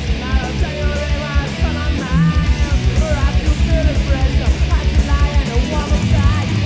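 Punk rock band playing live: distorted electric guitars and bass over a fast, driving drumbeat, with a singer's voice on top.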